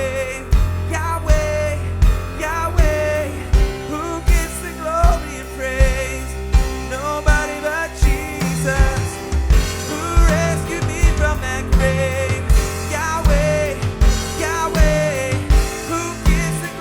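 Live worship band playing: a drum kit keeps a steady beat with regular kick-drum hits under piano, while a voice sings a wavering melody over it.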